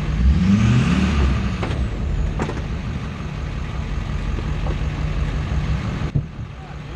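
Duramax turbo-diesel V8 pickup engine idling steadily, swelling in pitch briefly about half a second in and settling back. A few light clicks around two seconds in and a knock near the end.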